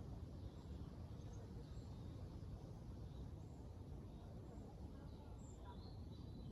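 Wind buffeting the microphone as a steady low rumble, with faint birds chirping here and there above it.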